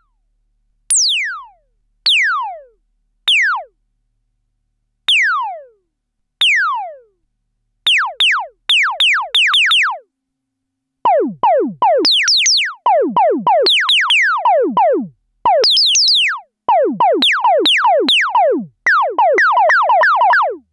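Korg ARP Odyssey analogue synthesizer played dry, each note a quick zap that sweeps steeply down in pitch. Single zaps come about a second apart at first, then from about eight seconds in they repeat in fast runs that get busier and quicker toward the end.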